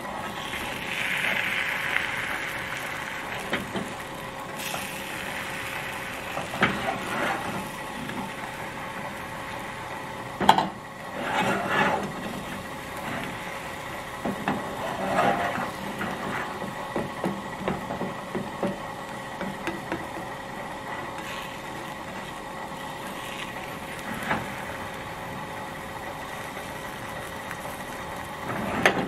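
Slotted plastic spatula scraping and tapping in a small 8-inch nonstick frying pan as an omelet is worked over the heat: scattered scrapes and clicks, loudest around ten to twelve seconds in, over a steady faint hum.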